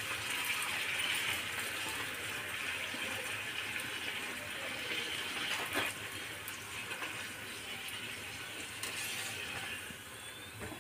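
Puri deep-frying in hot oil in a kadai: a steady sizzle, with a single click of the wire strainer against the pan about six seconds in.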